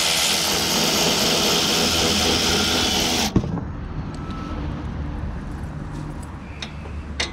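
A power ratchet spinning out a power steering cooler mounting bolt with a quarter-inch drive 10 mm socket on a long extension. It winds up, runs steadily for about three seconds and stops suddenly with a click.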